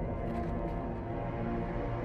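Dark, tense orchestral score from a TV drama's soundtrack, with held tones that swell a little louder right at the start.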